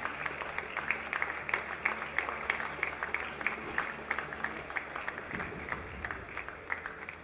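Audience applauding, many separate hand claps in a quick irregular stream.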